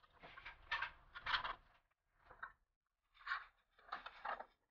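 Hollow aluminium cabinet panel boards being handled and set down on a glass tabletop: about half a dozen short scrapes and light knocks in quick succession.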